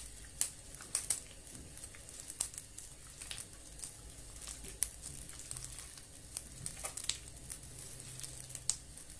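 A hand squeezing and mixing soft butter, egg and powdered sugar in a glass bowl: faint squishing with irregular light clicks.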